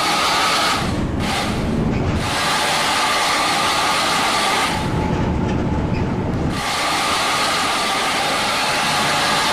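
Loud, steady rushing road noise from a tour bus driving past close by, with a faint steady tone over it. Twice, about a second in and again around five seconds in, the hiss drops away and a low engine rumble comes to the front.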